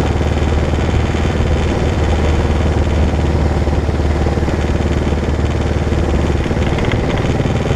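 Kawasaki KLR650's single-cylinder four-stroke engine running steadily at an even riding speed.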